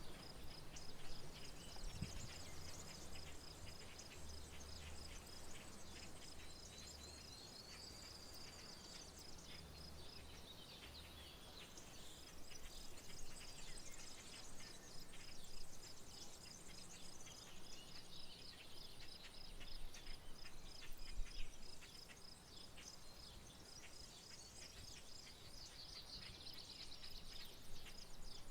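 Rural outdoor soundscape: an insect chirring steadily in a fast, even high pulse, with songbirds chirping and whistling over it. A faint low hum runs under the first third or so.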